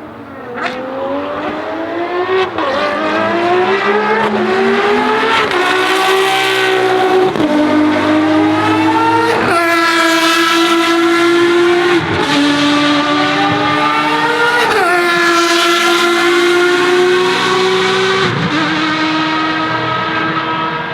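Ferrari FXX Evoluzione's naturally aspirated V12 accelerating hard through the gears. The pitch climbs, then drops sharply at each of about eight upshifts, and the sound grows louder over the first few seconds as the car approaches.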